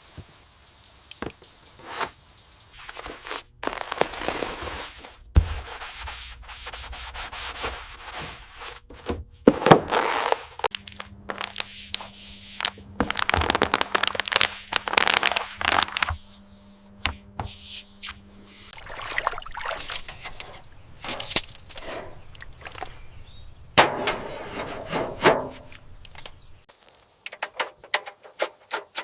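Workshop work sounds: repeated rubbing and scraping strokes, like sanding, broken by sharp clicks and knocks, with a faint steady hum for a few seconds in the middle.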